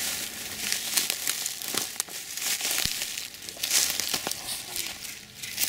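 Dry dead vegetation crackling and rustling underfoot as someone walks through last season's dry grass, a dense run of small crunches and snaps.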